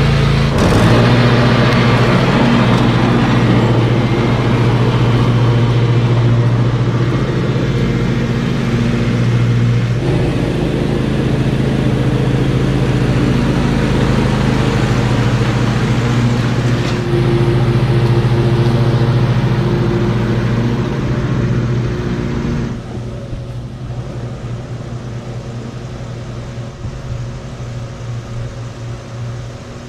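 Lawn mower engine running steadily at working speed with a strong hum. About 23 seconds in it becomes quieter and duller, as if it has moved off.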